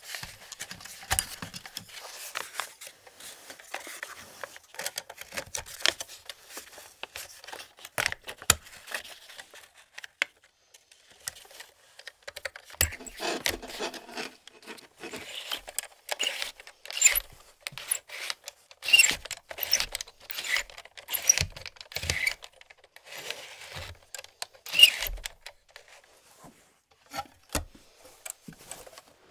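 Close-up handling of an Agfa Billy Compur folding camera: a busy run of small sharp clicks, scrapes and rattles of its metal parts, with the loudest, densest handling in the middle of the stretch.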